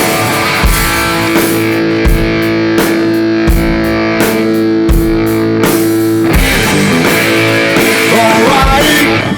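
Rock music with guitar and a steady drum beat: an instrumental stretch of a song, with no singing.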